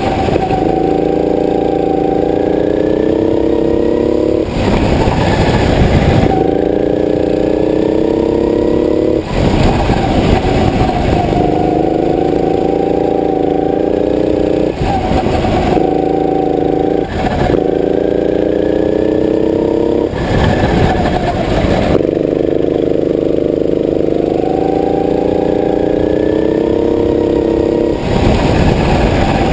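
Go-kart engine running hard on track, its pitch climbing steadily and then dropping back several times as the kart laps. About six short bursts of loud rushing noise briefly cover the engine.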